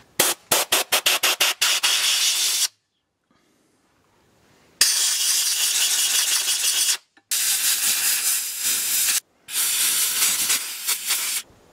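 Compressed-air blow gun hissing in blasts, cleaning crud out of an inline diesel fuel filter housing and its brass screen. A quick run of short spurts comes first, then a pause, then three long blasts of about two seconds each.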